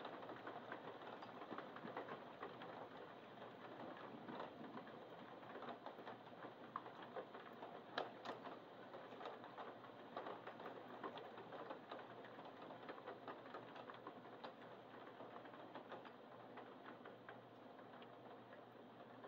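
Rain falling steadily, a dense patter of drops ticking in quick succession, with one sharper tick about eight seconds in.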